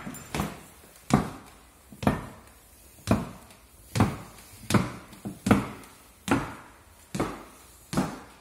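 Footsteps going down a tiled staircase and onto a tiled floor, about one step a second, each with a short echo.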